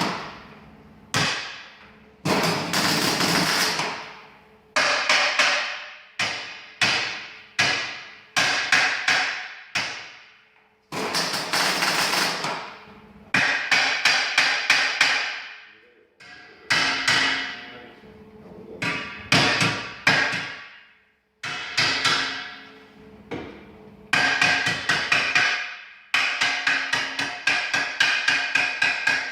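Hammer blows on metal, each strike ringing out after it, coming sometimes singly and sometimes in quick runs of several blows.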